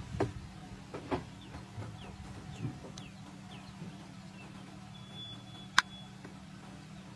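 A small bird giving short, thin, falling chirps about twice a second over a low steady hum, with a single sharp click about three-quarters of the way through.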